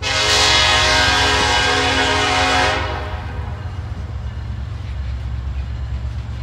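Diesel freight locomotive's air horn sounding one long blast that stops about three seconds in, over the steady low rumble of the approaching locomotives' engines.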